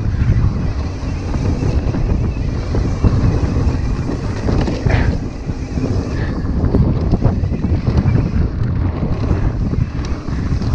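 Wind buffeting the microphone over the low rumble of mountain bike tyres on a dirt trail, with a few sharp rattles from the bike over rough ground.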